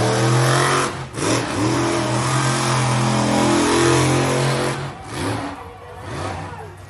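Monster truck engine revving hard, briefly easing off about a second in and dropping lower after about five seconds.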